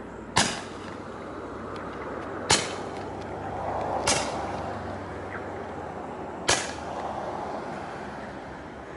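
Kimbolton 'Flying Fireflies' roman candle firing, four sharp shots about two seconds apart.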